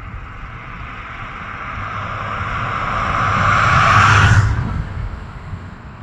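A vehicle passing by: tyre and engine noise swelling steadily, loudest about four seconds in, then falling away quickly.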